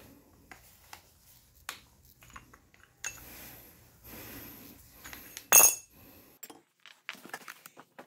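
Metal clinks and scrapes of a screwdriver prying the worn brake pads out of a scooter's front disc brake caliper, with a couple of seconds of scraping and one loud sharp clank past the middle.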